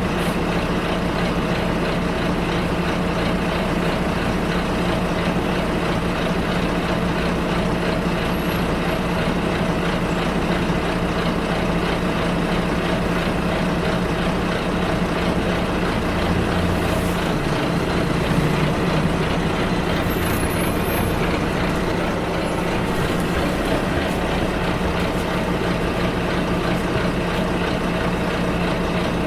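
A bus engine running as the bus drives, heard from inside the bus, with a steady hum and road noise. Around the middle the engine note shifts briefly.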